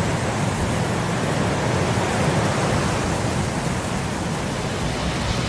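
Steady rushing wind of a snowstorm, an even noise without a break.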